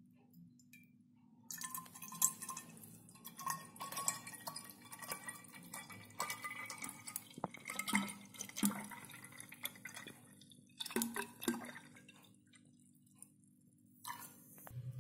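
Rose syrup being poured from a steel vessel into a glass bottle, trickling and splashing as the bottle fills. The pouring starts about a second and a half in, eases off after about twelve seconds, and comes back briefly near the end.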